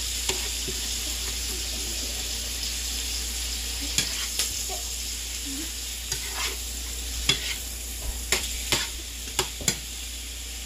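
Shrimp sizzling in oil in a frying pan, a steady hiss, as they are turned over. From about four seconds in, a run of sharp clicks and taps against the pan comes more and more often.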